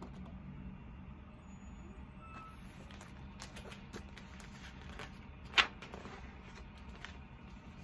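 Faint rustling and handling of a picture book's pages and cover over a low steady hum, with one sharp snap about five and a half seconds in.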